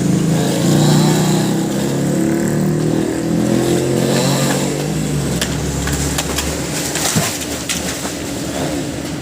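Chainsaw engine running at high revs, its pitch wavering, then easing off about five seconds in, with a few sharp knocks after.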